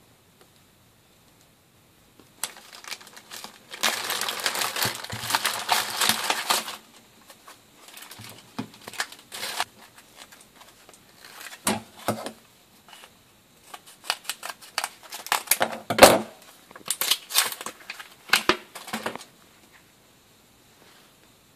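Clear plastic packaging crinkling and rustling as the kit's components are handled and unwrapped. It begins a couple of seconds in, with a dense stretch of crinkling, then breaks into scattered crackles and small clicks with a couple of sharper knocks, and stops shortly before the end.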